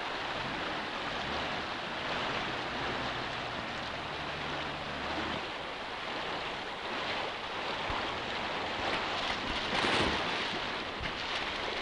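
Rushing water of a fast, rocky stream, heard as a steady rush, with a heavier splash about ten seconds in.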